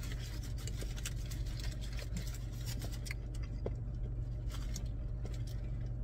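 Aluminium foil crinkling and rustling as it is peeled back from a corn on the cob, the crackles densest in the first half, over the steady low hum of the car's engine idling.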